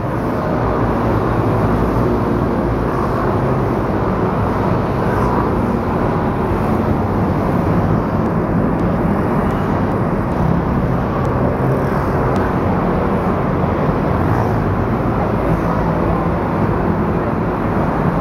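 Dense stream of motor scooters and motorcycles passing close by, their small engines running together in a steady, unbroken drone.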